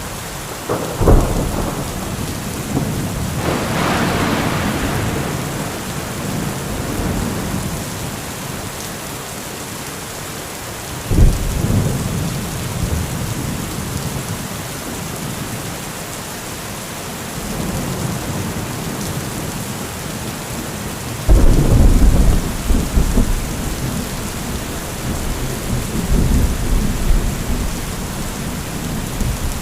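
Steady heavy rain with repeated thunder: a sharp thunderclap about a second in, a crackling rumble just after, another sharp clap about a third of the way through, and a long, heavy, low rolling rumble from about two-thirds through that rolls on near the end.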